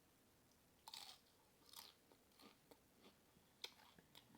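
Person chewing corn-chip nachos: faint, irregular crunches and mouth smacks, the sharpest about three and a half seconds in.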